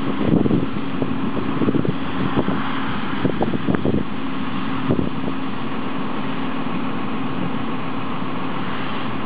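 Combine harvester running steadily, a constant drone with a steady hum in it, with irregular low bumps over the first four seconds or so.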